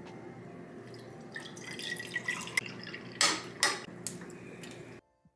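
Fruit punch poured from a plastic bottle into a mug over ice, splashing and glugging, with two louder glugs a little after three seconds in. The sound cuts off suddenly near the end.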